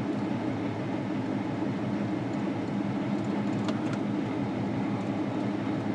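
V6 engine idling steadily with a low, even rumble. This engine is logging intermittent misfires on cylinders 1, 3 and 5, which the mechanic puts down to a bad oxygen sensor.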